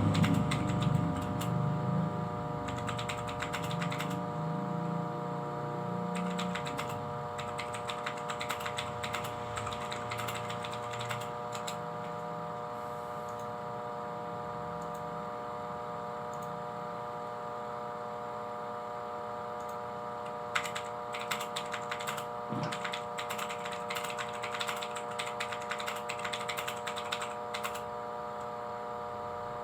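Rapid keyboard typing in three spells of clicking, over a steady electrical hum.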